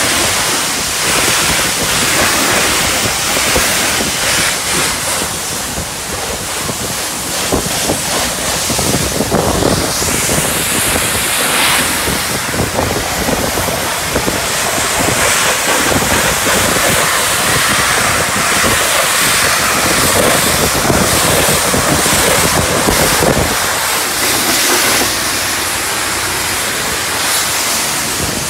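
High-pressure wand at a self-service car wash spraying thick foam onto a car's body: a loud, continuous hissing spray.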